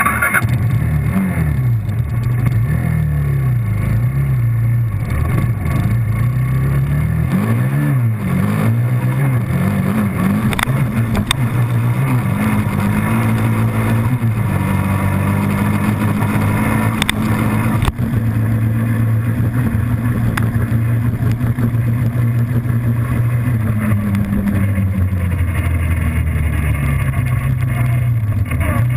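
Suzuki QuadSport Z400 ATV's single-cylinder four-stroke engine under hard riding. The engine pitch climbs and drops repeatedly as it accelerates and shifts, with long stretches held steady at speed.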